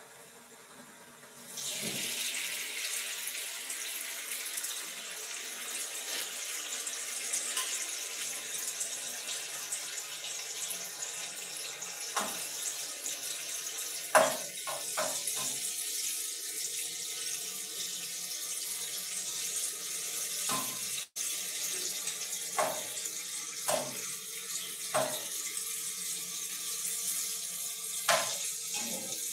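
Food sizzling in hot oil in a frying pan on a gas stove, starting suddenly about a second and a half in. A spatula knocks and scrapes against the pan several times in the second half.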